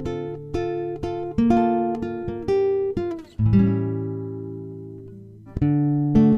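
Background music on acoustic guitar: plucked notes and chords, with one chord left to ring out and fade about halfway through before the playing picks up again.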